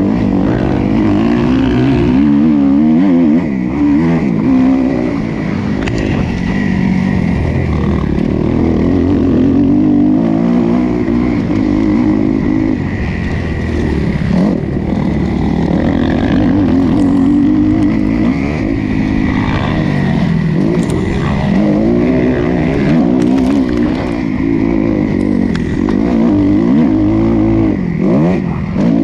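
Motocross bike's engine heard from on board, revving up and falling back again and again as it accelerates out of corners and shifts through the gears, with wind noise on the microphone.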